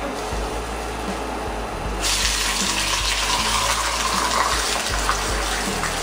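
Hot oil in a kadai sizzling as a banana-leaf parcel is set into it. The sizzle jumps up sharply about two seconds in and stays loud.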